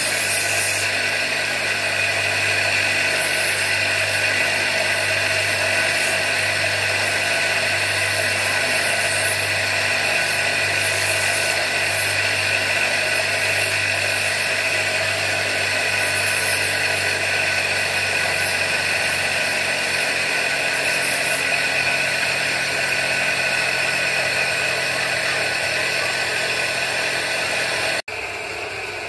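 Electric bench grinder running steadily while a bacan gemstone is held against its wheel and ground into a cabochon shape. The sound drops suddenly near the end.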